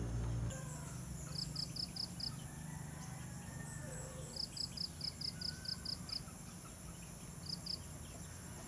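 Outdoor insect and bird ambience: a steady high insect whine, with three runs of rapid, evenly spaced high chirps at about five a second. A brief low rumble opens it.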